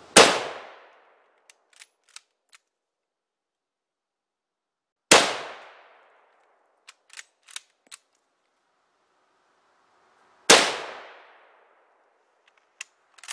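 Three shots from a bolt-action Mosin-Nagant carbine in 7.62x54R, about five seconds apart, each dying away over about a second. Between shots come a few short sharp clicks as the bolt is worked to chamber the next round.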